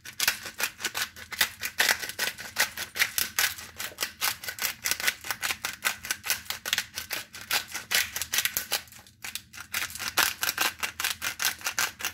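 Disposable black pepper grinder twisted back and forth by hand, its grinding head clicking rapidly and steadily, with a brief pause about nine seconds in.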